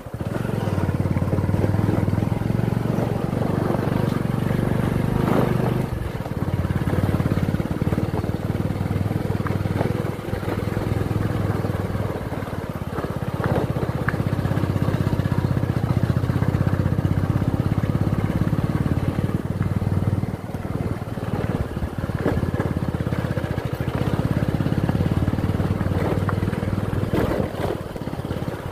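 A vehicle driving along a rough forest road: low engine and road rumble that swells and eases every few seconds, with an occasional knock from bumps.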